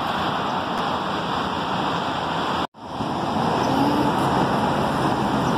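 Steady hum of road traffic passing, broken by a sudden cut to silence about halfway through before the same noise resumes.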